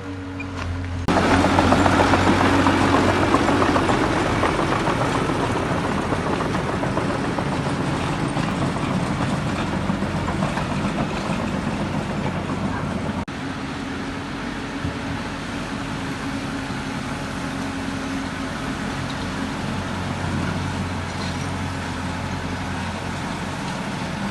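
Heavy diesel construction machinery running with a steady low engine hum. About a second in, a loud rushing, grinding noise sets in suddenly and slowly eases off over the following seconds.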